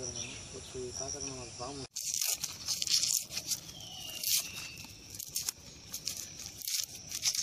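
Hands peeling a small red onion over a plastic bag: the dry papery skin crackles and tears in quick irregular rustles, mixed with the bag crinkling. Insects chirp for the first two seconds, before the peeling starts.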